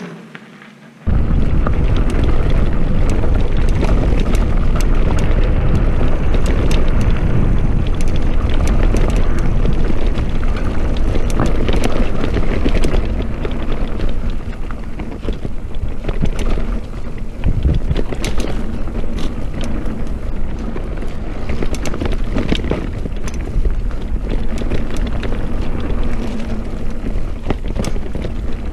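Wind buffeting the microphone and tyres rumbling on a dirt trail during a fast mountain-bike descent, with frequent rattles and knocks from the bike over roots and bumps. It cuts in abruptly about a second in, after a quieter moment.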